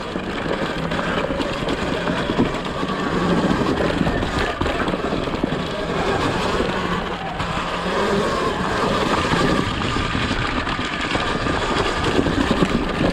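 Surron Ultra Bee electric dirt bike ridden over a leaf-covered, rocky woods trail: steady tyre and chain-drive noise with scattered knocks as it goes over rocks, and a faint whine from the electric motor.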